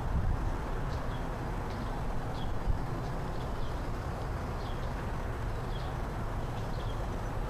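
Steady low outdoor rumble with faint, short high chirps of small birds every second or so, and one brief thump about three seconds in.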